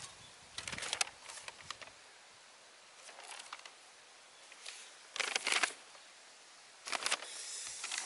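Plastic packaging bags and a paper instruction sheet crinkling and rustling in short bursts, about four times, as they are handled.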